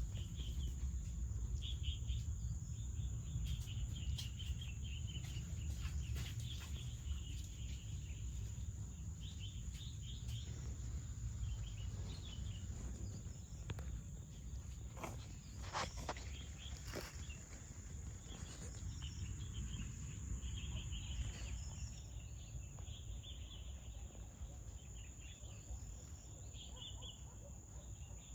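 Insects chirping outdoors: a steady high-pitched insect drone with scattered short chirps, over a constant low rumble. A few sharp clicks come near the middle.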